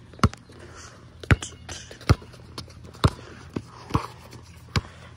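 Basketball dribbled on a concrete court: seven sharp bounces, roughly one a second and unevenly spaced.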